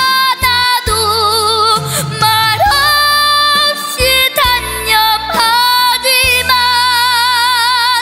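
A girl singing a Korean trot ballad live into a microphone over an instrumental backing track, holding long notes with a wide vibrato between short breaths.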